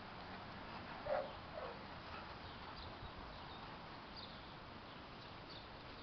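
Two short, faint yips from a dog at play, about a second in and half a second apart, with faint high bird chirps now and then.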